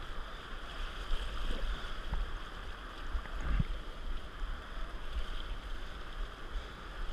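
Steady rush of shallow river water flowing and lapping around floating inflatable tubes, with an uneven low rumble of wind or water buffeting the microphone.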